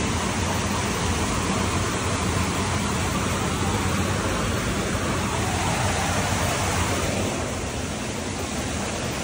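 Steady rush of flowing water, easing slightly near the end.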